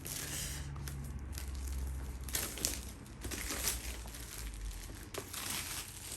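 Packaging of a DJI Mini 2 drone box being opened by hand, crinkling and rustling in a series of short bursts.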